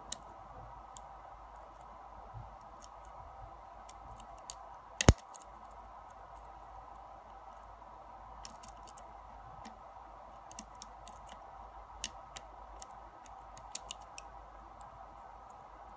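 Scattered small metallic clicks and ticks of a lock pick working the pins of a brass Yale pin-tumbler cylinder during single-pin picking, with one louder click about five seconds in and a cluster of clicks near the end, over a faint steady hum.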